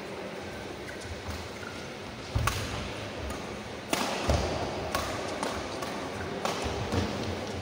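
Badminton rally: rackets strike the shuttlecock with sharp cracks every second and a half to two and a half seconds, with players' feet thudding on the court between shots.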